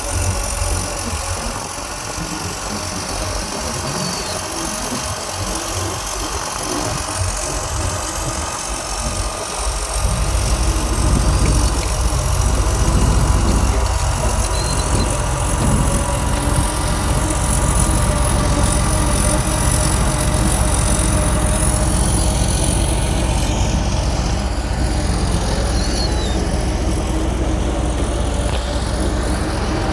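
Bulldozer's diesel engine running steadily, growing louder with a heavier low rumble from about ten seconds in as it works harder.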